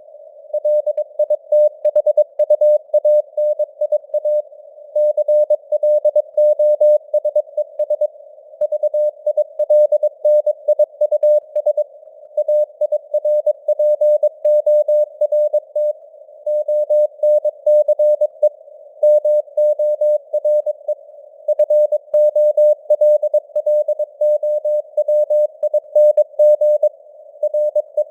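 Morse code (CW) sent at 22 words per minute: a single steady mid-pitched tone keyed on and off in dots and dashes, with short gaps between words, over a narrow band of simulated radio-receiver hiss.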